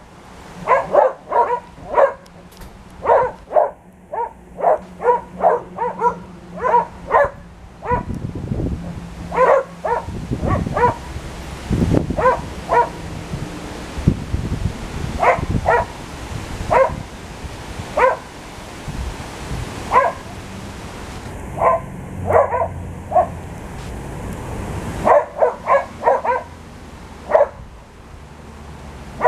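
Australian Shepherds barking in play while they wrestle: short sharp barks in quick runs of several, broken by pauses, with a low rumble underneath for a few seconds in the middle.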